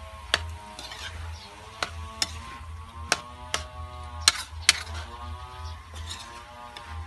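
Spatula scraping and knocking against an aluminium wok as food is stir-fried, with about a dozen sharp clanks at an uneven pace. Background music plays underneath.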